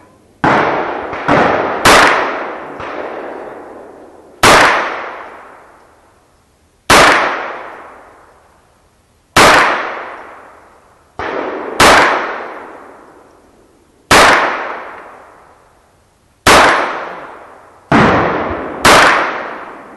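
Shots from a Smith & Wesson 22A .22LR pistol firing CCI Velocitor 40-grain hollow points, fired at a steady pace about every two and a half seconds, with a few extra reports close together near the start. Each shot is a sharp crack that trails off in a long echoing decay.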